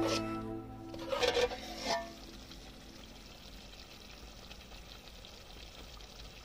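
A ladle stirring and scraping thick chicken curry in an aluminium pot for the first two seconds, while background music fades out. After that comes the faint, steady sizzle of the curry simmering.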